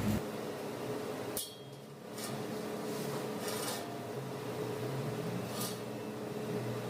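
Metal tools and engine parts clinking and scraping as they are handled, a few separate knocks over a steady faint hum.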